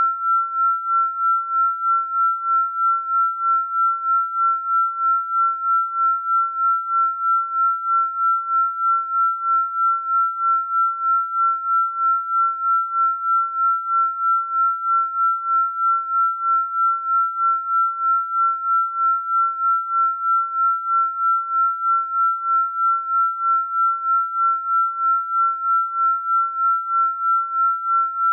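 A single pure, high sine-wave tone held at one steady pitch, the generated tone of a binaural-beat frequency track. Its loudness pulses evenly, about two to three times a second.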